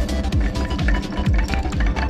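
Background electronic music with a steady kick-drum beat, about two beats a second.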